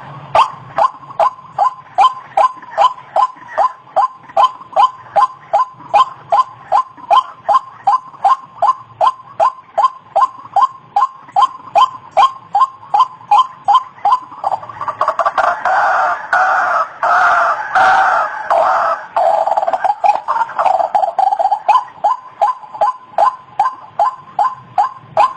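White-breasted waterhen calling: a steady, rhythmic run of short repeated notes, about two or three a second. About two-thirds of the way through there is a louder, more crowded stretch of calling.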